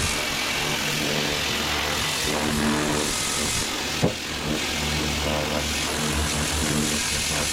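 Pressure washer jet-washing a steel fuel tank: the washer's motor and pump running steadily under the hiss of the spray. There is a single sharp knock about four seconds in.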